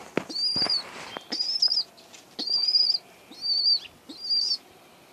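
Young Shirazi pigeon squabs, a few weeks old, peeping: five high, thin calls about half a second each, roughly one a second. A couple of short handling knocks come in the first second.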